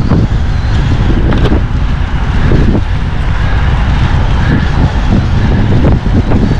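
Wind buffeting the microphone of a camera riding along on a fast-moving bicycle: a loud, steady rush with gusts.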